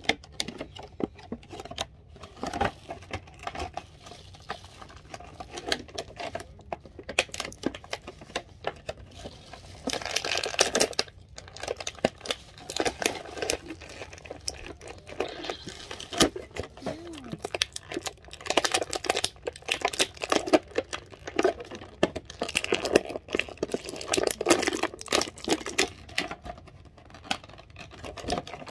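Clear plastic packaging of an action figure crinkling and crackling as hands work it open, in many quick irregular crackles with a denser stretch about ten seconds in.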